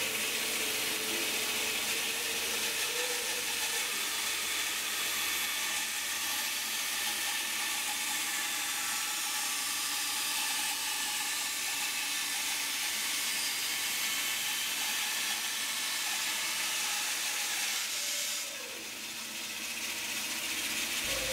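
Bandsaw resawing a glued-up pine block against the fence, the blade cutting through the wood with a steady hiss. The sound eases briefly near the end, then picks up again.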